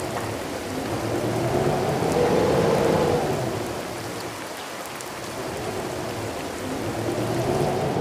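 Heavy rain pouring down with strong wind gusting through it; the gusts swell about two seconds in and again near the end, each carrying a hollow tone that rises and falls.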